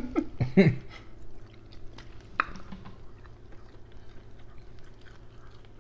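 Close-up chewing with small wet mouth clicks as food is eaten, after a brief vocal sound in the first second; one sharper click a little before the middle.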